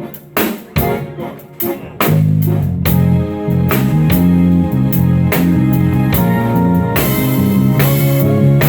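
Live band playing: a few short, sharp hits together in the first two seconds, then the full band comes back in and plays on steadily.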